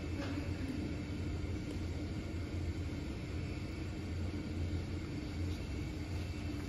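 Steady low hum and rumble of room background noise, with a faint click just after the start.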